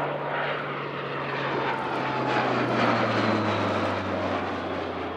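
Dornier Do 228's twin Garrett TPE331 turboprops droning in a low flypast. The propeller tone falls steadily in pitch as the aircraft passes, loudest about three seconds in, with a fainter falling whine above it.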